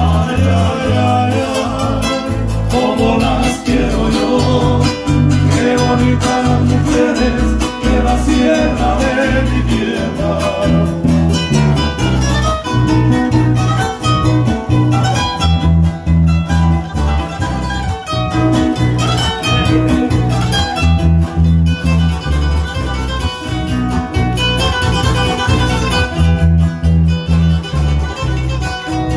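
A small band playing a northern Nicaraguan mazurka live on acoustic guitar, electric bass and keyboard, over a steady, repeating bass line.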